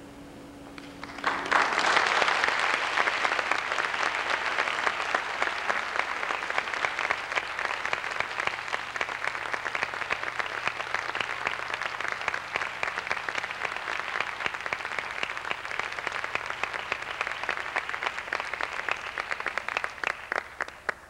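The last held note of the music dies away, and about a second in an audience breaks into applause, which carries on and thins to scattered claps near the end.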